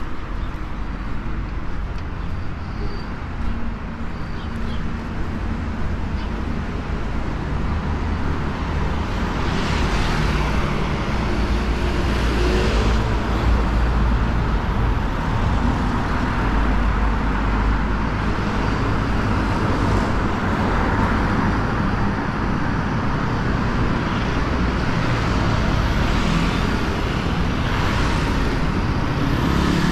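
Road traffic passing close by: a steady rumble of cars, with several vehicles swelling past one after another from about a third of the way in.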